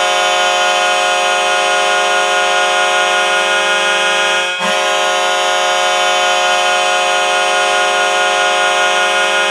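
Ice hockey goal horn blowing loud and steady on one chord, with a short break about four and a half seconds in before a second long blast.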